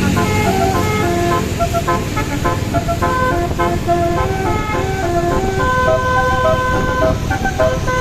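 Bus's telolet basuri multi-tone horn playing a quick melody of short notes, often several at once, with a longer held chord about six seconds in, over the rumble of the engine and road.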